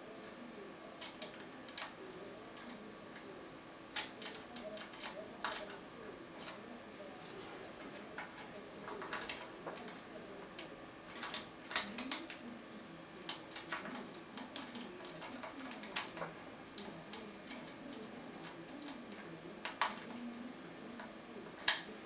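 Lock pick and tension tool working inside the keyway of a DOM IX 6 KG euro lock cylinder. The pins make small, irregular metallic clicks and scrapes as they are picked, with the sharpest click near the end.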